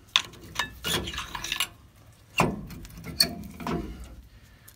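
Rust-seized rear brake caliper on a Ford F-150 being pried and lifted off its pads and bracket: a string of metal knocks and scrapes with brief ringing clinks, the loudest knock about two and a half seconds in.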